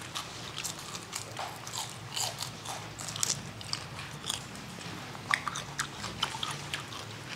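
People chewing and biting raw cucumber close to the microphone: irregular crisp crunches scattered through, with no talking.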